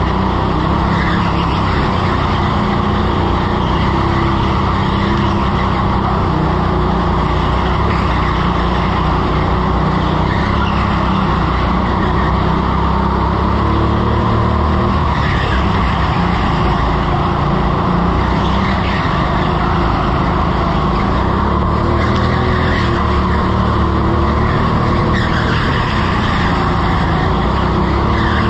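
Rental go-kart being driven flat out on an indoor concrete track, heard from on board: a steady, loud motor hum with tyre noise, and short tyre squeals as it slides through the corners several times.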